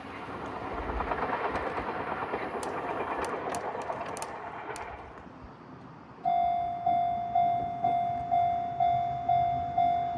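A train passing over a level crossing, a broad rumble with some sharp clicks that fades away about five seconds in. About a second later a Japanese level-crossing warning bell starts ringing: a repeated pitched clang, about two strikes a second, each strike dying away before the next.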